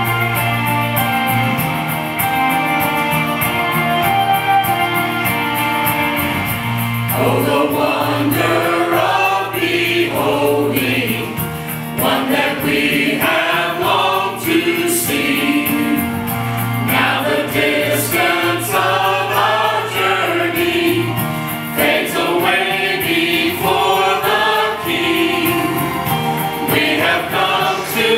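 Mixed church choir singing over an instrumental accompaniment. The accompaniment plays alone at first, with steady held notes, and the voices come in about seven seconds in.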